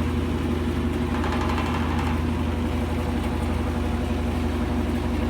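GE GTW460ASJ4WW top-load washing machine in its high-speed spin: a steady motor hum with a rapid, even shaking vibration as the whole machine shakes hard, which GE says is normal for this washer.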